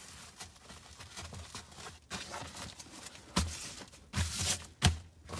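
Fabric of a Smittybilt G.E.A.R. cargo liner rustling as hands fold a panel in and press it down onto its Velcro. A few soft thumps come in the second half, the loudest near the end.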